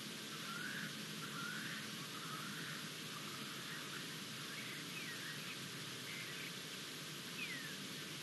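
Birds calling over a steady outdoor hiss: a run of short chirps in the first few seconds, then a few thin falling whistles.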